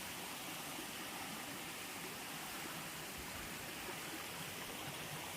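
Steady rushing of stream water spilling over into a small waterfall.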